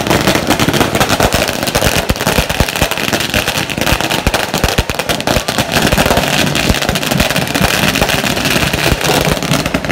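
Firecrackers going off in a rapid, continuous crackle of bangs.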